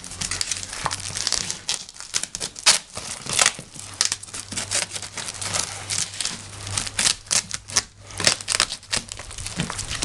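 Packaging being handled and unwrapped: irregular crinkling and rustling of wrapping and box material, in quick, uneven handfuls.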